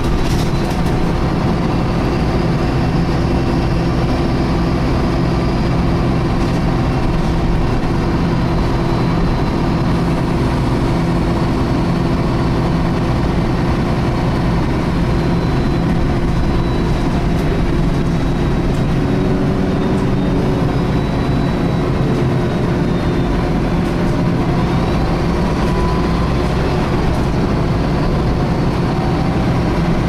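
MAN-chassis Wright Meridian bus heard from the rear of the saloon while under way: a steady engine drone with the high, vacuum-cleaner-like whine of its engine cooling fan ("hoovering") drifting up and down in pitch.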